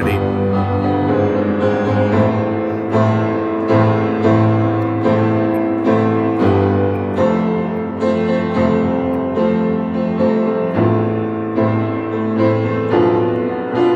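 Music: a piano playing slow, steady chords, restruck at an even pulse with the chord changing every couple of seconds, and no voice.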